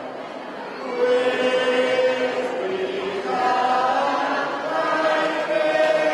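Mixed group of men and women singing a hymn together, a slow melody of long held notes; the singing is softer for the first second, then swells.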